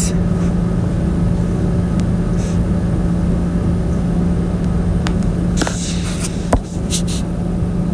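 Steady low hum with a constant low tone and a low rumble beneath it, with a few faint clicks in the second half.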